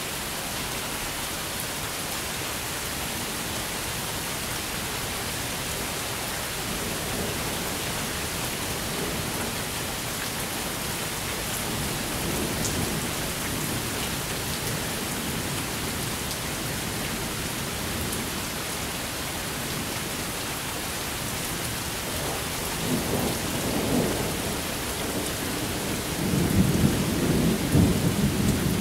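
Thunderstorm: steady rain hissing throughout, with rolling thunder rumbling in about two-thirds of the way through and growing louder toward the end.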